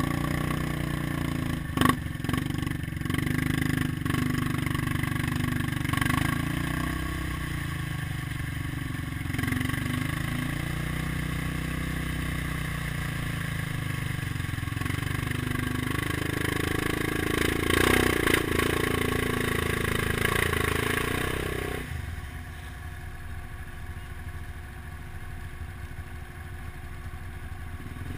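ATV engines running, with the throttle worked as a quad churns through deep mud; the revs rise over a few seconds past the middle, then drop back to a lower idle. A sharp knock sounds about two seconds in.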